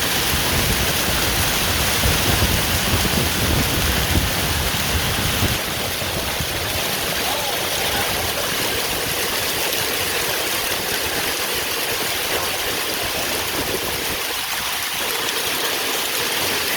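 Heavy thunderstorm downpour of rain and hail, a steady dense hiss of falling water and ice. A deep rumble sits underneath for the first five seconds or so, then drops away.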